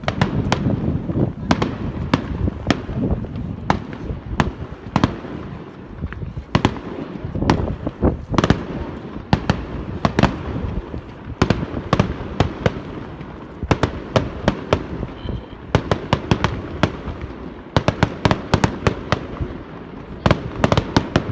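Fireworks display: a rapid, irregular series of sharp cracks and bangs over a low rumble, packed most densely near the end.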